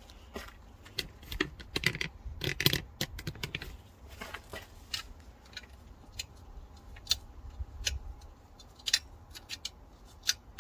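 Metal hand tools and engine fasteners clinking and clattering in irregular sharp clicks, densest in the first few seconds, during work on a stripped-down diesel engine.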